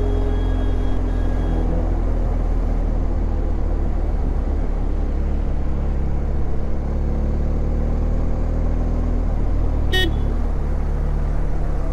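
Motorcycle riding in city traffic, its engine and the passing traffic making a steady low rumble on the onboard camera; a short horn beep sounds about ten seconds in.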